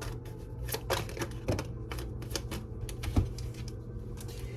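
Tarot cards being shuffled and handled: a run of irregular light clicks and snaps, a few a second, with a louder one about three seconds in.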